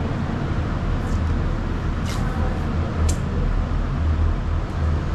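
Car driving, heard from inside: a steady low rumble of engine and road noise, with a couple of faint short ticks about two and three seconds in.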